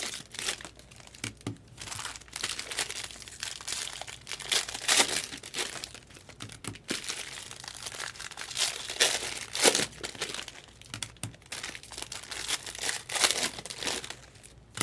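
Plastic trading-card pack wrappers crinkling and tearing as packs are opened by hand, in irregular crackles.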